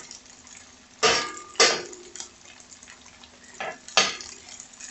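A metal utensil scraping and knocking against a frying pan about four times, two pairs of strokes, while shrimp fry in oil with a faint sizzle between.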